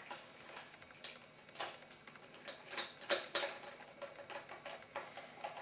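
Phillips screwdriver turning a screw into a paintball drum magazine's adapter: faint, irregular clicks and ticks, a few a little louder around the middle.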